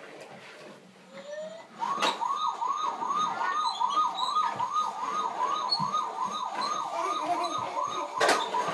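Battery toy vehicle's electronic siren wailing fast, about three rising-and-falling sweeps a second. It starts with a click about two seconds in and cuts off with another click just before the end.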